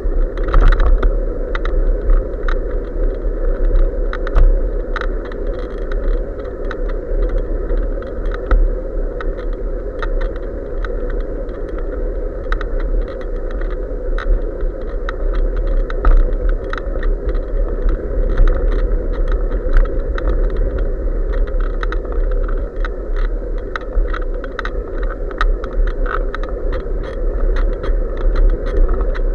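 Steady wind and road noise from riding a bicycle, picked up by an SJ4000 action camera mounted on the bike, with a low rumble and many small, irregular clicks and rattles from the camera and bike over the road.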